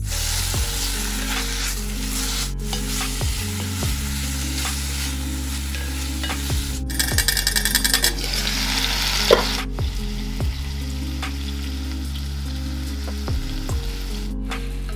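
Chicken pieces frying with onions in a stainless steel pot, sizzling steadily. A single sharp metal clink about nine seconds in, from the pot's stainless steel lid.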